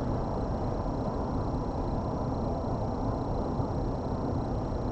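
Steady road and tyre noise inside a car's cabin while cruising on a highway at about 53 mph.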